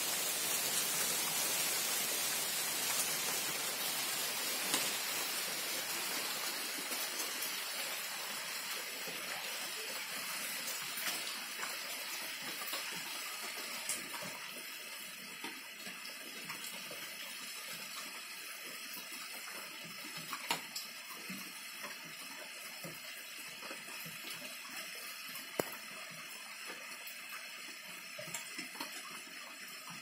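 Rain falling on foliage, a steady hiss that slowly eases over the span, with a few separate drips tapping on leaves.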